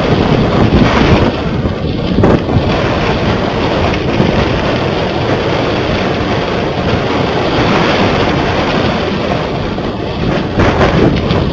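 Wind buffeting the microphone of a small camera strapped to a flying kite: a loud, continuous rush of noise that swells and eases in gusts.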